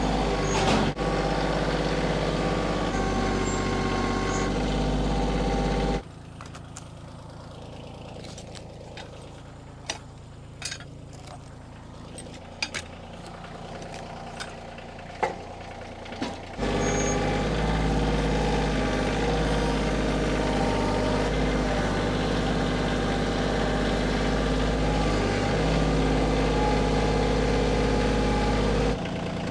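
A compact loader tractor's engine running steadily. It is followed by a quieter stretch of several seconds with a few sharp knocks as a log is rolled with a cant hook, and then the tractor's engine running again.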